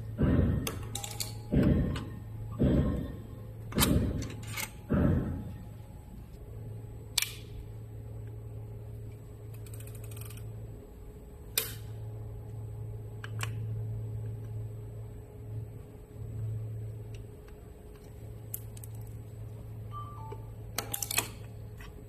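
Background music with a heavy, regular beat for about five seconds. After that, a steady low hum with a few scattered sharp clicks, several close together near the end.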